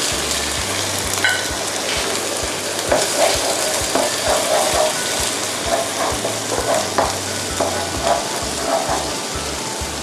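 Egg sizzling in hot oil in a wok, with a spatula scraping and stirring through it in repeated strokes from about three seconds in.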